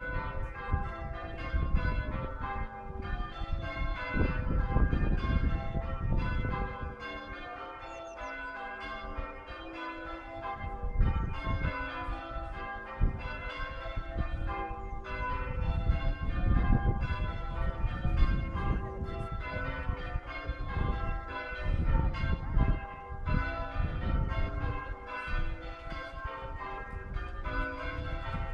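Church bells being rung, a continuous run of overlapping strokes, with a low rumble swelling and fading several times underneath.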